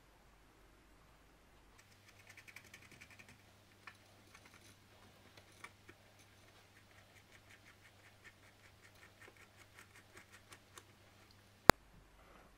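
Light clicks and scratches of a coiled heating wire and ceramic insulator beads being pressed into the grooves of an electric cooker's ceramic hotplate base, with a run of quick light ticks, about four a second, in the second half. One sharp, much louder click comes near the end, over a faint low hum.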